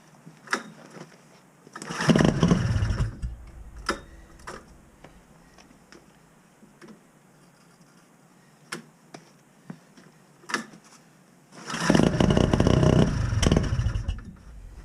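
Sachs KM914 Wankel rotary snowmobile engine being cranked over on a cold start: two short cranking bursts, the first about two seconds in and a longer one near the end, neither settling into a steady run. Single sharp clicks fall in the pauses between.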